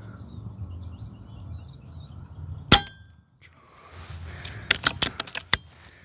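A single air rifle shot with a short metallic ring, followed about two seconds later by a quick run of half a dozen sharp clicks.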